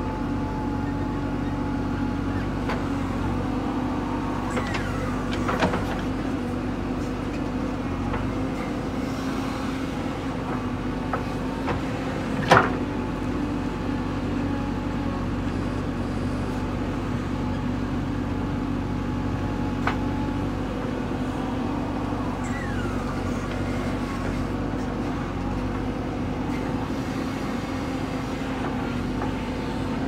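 JCB 3DX backhoe loader's diesel engine running steadily under digging load, with a few sharp knocks as the backhoe works the soil, the loudest about twelve seconds in.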